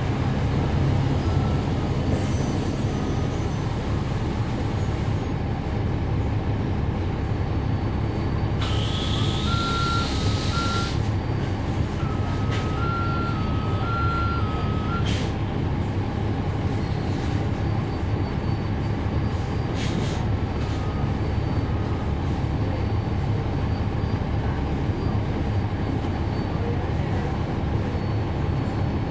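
Cummins ISL9 diesel engine of a NABI 40-SFW transit bus, heard from on board, running steadily. About a third of the way in, an electronic beep alternating between two pitches sounds twice, along with a brief rising hiss.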